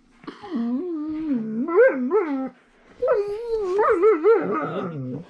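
Siberian husky giving two long, wavering whine-howls, about two seconds each, her pitch wobbling up and down within each call: the husky 'talking' back, annoyed at being pestered by another dog.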